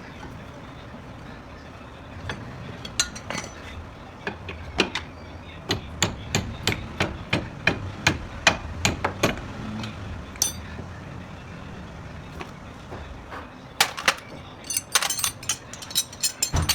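Hammer strikes during car brake and steering repair work: scattered knocks, then a steady run of blows about two to three a second, and a quick flurry of knocks near the end.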